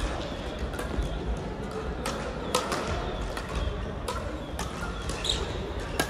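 Crossminton rackets hitting speeders in play: a string of sharp knocks at uneven intervals.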